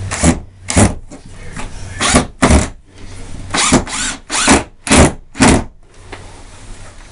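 Cordless drill run in about nine short trigger bursts, each well under a second, as it drives screws into the pegboard.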